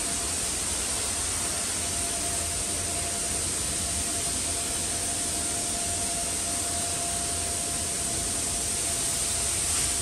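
Steady rushing hiss of air, as from a ventilation blower inside a ship's hull, with a faint steady whine that firms up about two seconds in.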